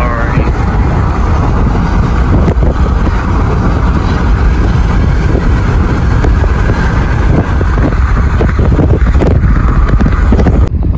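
Car driving at speed, with a loud, steady rumble of road and wind noise.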